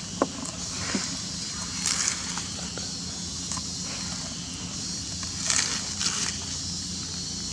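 Outdoor ambience: scattered rustling and crunching, loudest about two seconds in and twice more later on, over a steady high hiss.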